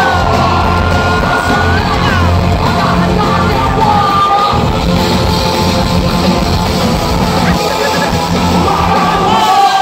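Hard rock band playing loud live with heavy bass, and voices close to the microphone singing and yelling along in long held notes.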